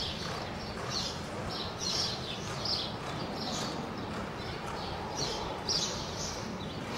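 A horse loping on soft arena dirt, with short high chirps, like birds, recurring about twice a second over a steady noisy background.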